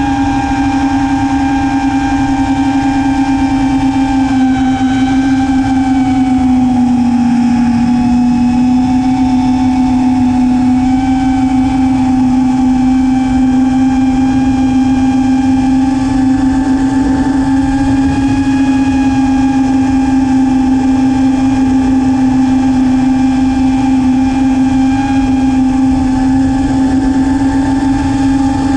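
Five-inch FPV racing quadcopter's four brushless motors (Lumenier 2208 2400kv) and tri-blade props running in flight, a steady high whine whose pitch sags briefly about seven seconds in and then recovers, with wind rumbling on the onboard camera's microphone.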